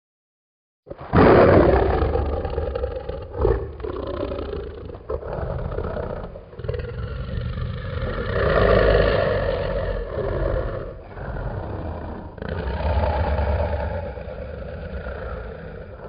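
Dragon roar sound effect: a deep, growling roar starts suddenly after about a second of silence, loudest at its onset. It goes on as a string of rumbling roars and growls with short breaks between them, swelling again about halfway through.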